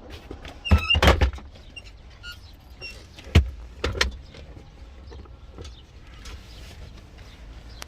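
Sharp clicks and knocks of hand work on the vehicle's interior trim: a quick cluster about a second in, a single sharp knock a little after three seconds and a couple more near four seconds, over a steady low rumble.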